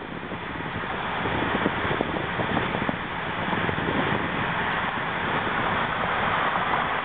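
Road and wind noise of a moving car heard from inside the cabin: a steady rushing hiss that grows louder over the first two seconds, then holds.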